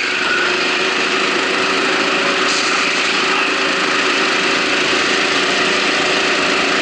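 Go-kart engine running steadily under racing load, heard close up from on board, with the sound of other karts around it.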